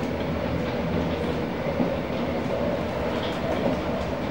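Steady running noise of a Singapore MRT train heard from inside the car on an elevated line: an even rumble of wheels on rail with a low hum and a few faint clicks.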